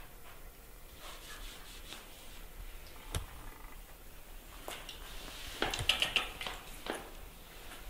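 A puppy and a baby monkey scuffling on a fleece mat: soft rubbing and scratching, a few sharp clicks, and a louder flurry of scuffling about six seconds in as the puppy clambers over the monkey.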